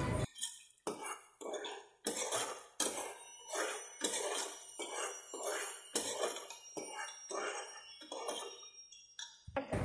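Metal slotted spoon stirring mutton gravy in an aluminium pressure cooker, scraping and clinking against the pot in quick, even strokes, about three a second.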